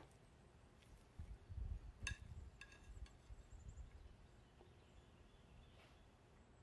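A metal fork working in a platter of rice and chicken: soft handling rustles and a couple of light metallic clinks with a brief ring about two seconds in, otherwise near-silent room tone.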